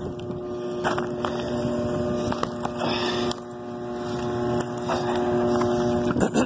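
Kitchen exhaust fan motor humming steadily as it tries to start without turning, the sign of a locked-up, failed motor. The hum cuts off shortly before the end.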